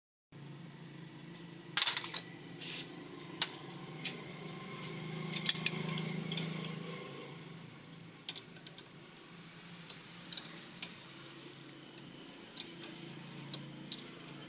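Light metallic clinks and taps, as of tools and parts being handled, scattered over a steady low hum that swells about halfway through.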